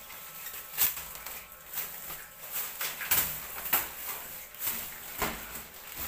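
Plastic wrapping and a white protective packing sheet rustling and crinkling as they are pulled off a new small refrigerator, with several sharp, irregular crackles.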